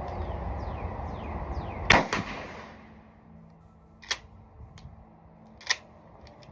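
Sharp crack from the Mossberg pump-action shotgun about two seconds in, a second crack close behind it and a short fading tail, then two lighter clicks later on.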